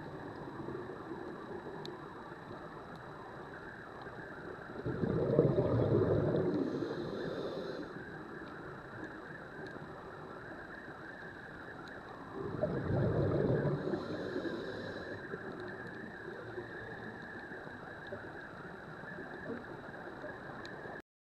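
Scuba diver's exhaled bubbles gurgling up from the regulator past the camera housing, twice, about seven seconds apart, over a steady underwater hiss. The sound cuts off suddenly near the end.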